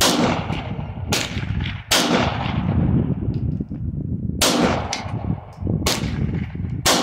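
Semi-automatic pistol fired six times at uneven intervals. Each shot is a sharp crack with a short echo trailing off.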